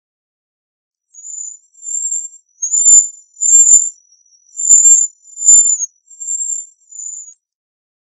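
Cedar waxwing giving a series of about eight high, thin call notes, starting about a second in, louder in the middle and fading toward the end. Two brief clicks fall among the middle notes.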